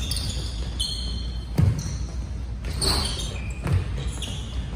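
A basketball bouncing on a hardwood gym floor with a few dull thuds, and sneakers squeaking in short high squeals, echoing in a large gym.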